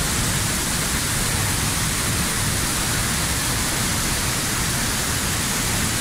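Palovit waterfall gushing down onto rock, heard from right at its foot in the spray: a steady, even rush of water.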